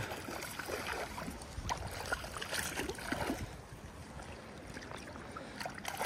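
A hooked brown trout splashing and thrashing at the surface of the river while being played in, with a few brief splashes in the first half, over the steady rush of moving water.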